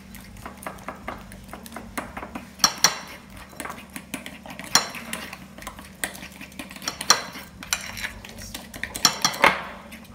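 A spoon stirring a thick gram-flour batter in a glass bowl, scraping and ticking against the glass, with a few sharper clinks spread through.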